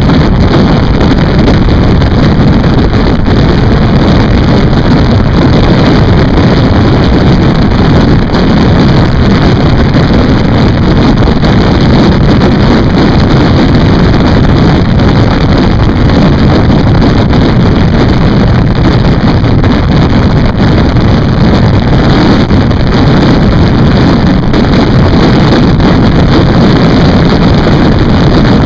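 Loud, steady wind rushing on the microphone of a camera on a motorcycle moving at road speed, mixed with the motorcycle's running noise.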